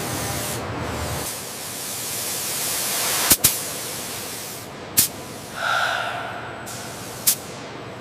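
Steady hiss of a compressed-air paint spray gun spraying, broken by three sharp clicks. In the first second a lower rushing noise sits under it.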